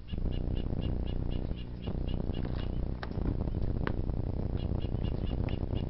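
A bird chirping over and over, about four short high chirps a second, stopping after a couple of seconds and starting again, over a steady low rumble. A couple of faint sharp ticks fall in the middle.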